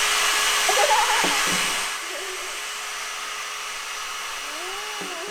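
Small electric air blower running steadily with a whoosh of air and a faint motor hum, its level dropping about two seconds in and then holding steady. A faint voice briefly near the start and again near the end.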